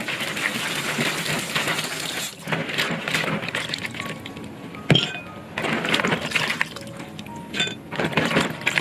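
Hands stirring and rubbing raw peanuts in a plastic basin of water: uneven sloshing and splashing with the wet nuts clicking against each other, coming in handfuls with short pauses. Light background music plays underneath.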